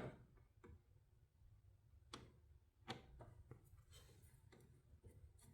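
Faint, scattered small clicks and ticks of a Phillips screwdriver loosening a screw, about seven over a few seconds, otherwise near silence.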